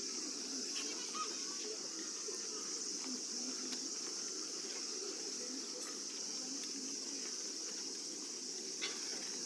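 Steady high-pitched buzz of a cicada chorus over a low open-air murmur from the stadium, with one short click near the end.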